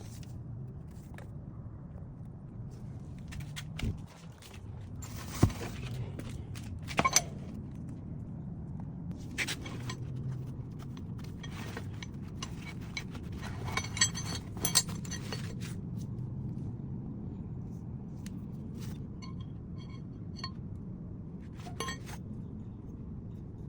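Metal tools and parts clinking and clattering during brake work, in scattered sharp clicks over a steady low hum.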